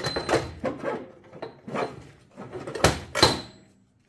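Heavy steel 1-inch-drive impact sockets knocking and clattering as they are handled and set down. There are several sharp metallic clanks, the loudest two a little under three seconds in, and one rings briefly.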